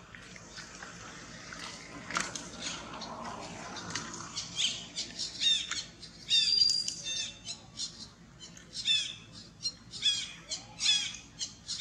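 A baby monkey crying: a series of short, high-pitched squealing cries, each falling in pitch, coming about twice a second from about four seconds in.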